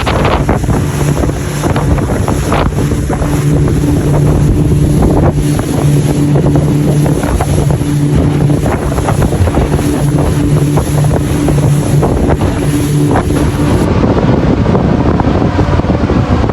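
Fishing boat's engine running steadily with a low, even hum, with wind buffeting the microphone.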